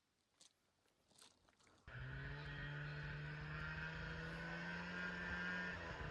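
A few faint crunches, then about two seconds in a snowmobile engine cuts in abruptly and runs at a steady idle.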